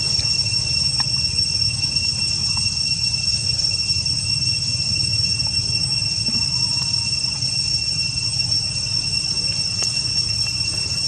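Insects droning steadily at a high, even pitch, over a constant low rumble.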